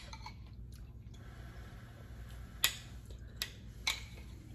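Metal spoons clinking against glass bowls while eating: a few sharp ticks, the loudest about two and a half seconds in, over a low steady hum.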